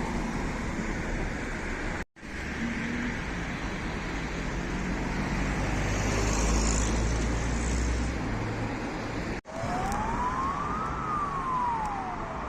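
Road traffic noise with a vehicle engine rumbling close by, loudest past the middle, the sound cutting out abruptly twice at edits. Near the end a Russian ambulance siren gives one slow wail, rising and then falling in pitch.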